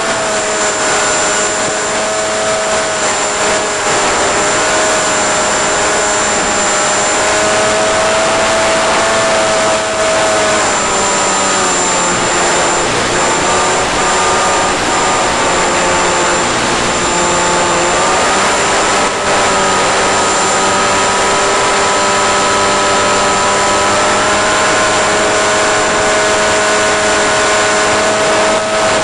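Electric motor and propeller of a flying-wing RC plane, picked up by its onboard camera, giving a steady whine over wind hiss. The pitch sinks about a third of the way in and climbs back a few seconds later.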